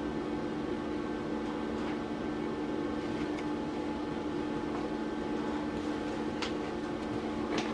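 Welding set humming steadily, with a few faint clicks near the end.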